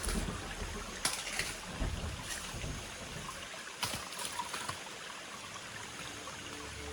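Steady hiss of running water, with a few scattered sharp clicks and knocks.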